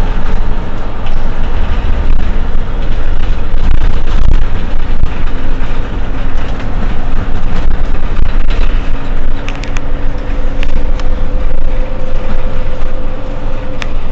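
Mercedes-Benz Citaro C2 Euro 6 city bus running, its diesel engine giving a heavy, steady rumble. From about halfway a whine joins in and climbs slightly near the end, with a few sharp clicks.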